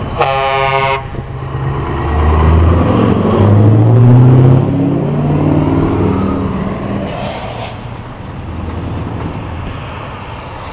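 A short truck horn blast near the start, then a Scania V8 truck's engine pulling past close by: its note climbs and grows loud, then drops in pitch and fades as it moves off.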